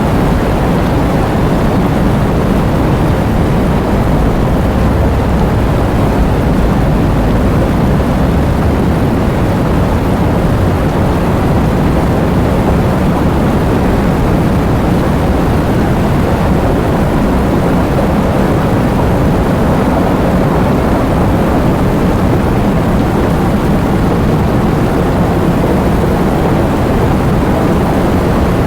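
Heavy rain pouring steadily, a dense rushing hiss with a deep low rumble and no individual drops standing out.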